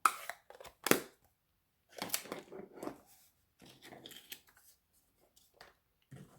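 Craft supplies handled on a tabletop: two sharp knocks, the first at the start and the second about a second in, then cardstock rustling and sliding.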